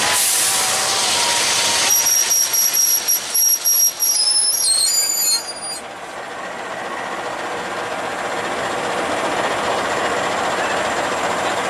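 KAI CC206 diesel-electric locomotive slowly hauling a wrecked Toyota Fortuner along the track by a chain. A high-pitched metallic squeal runs for a few seconds and breaks up about halfway through. It gives way to a rasping scrape that slowly grows louder as the crumpled SUV is dragged over the ballast.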